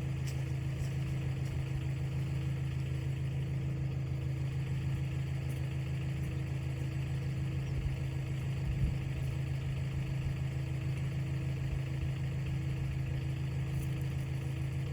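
Tractor engine running steadily while it pulls on a multi-pulley line rigged to roll a log, with one brief thump about nine seconds in.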